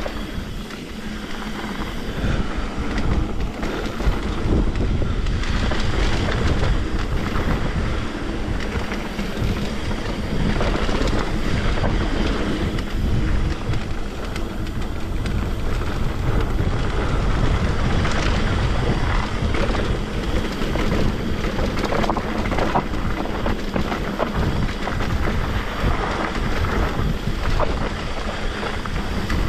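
Wind rushing over a chest-mounted GoPro microphone during a mountain bike descent, with tyre noise on the trail and many short rattles and knocks from the bike over rough ground.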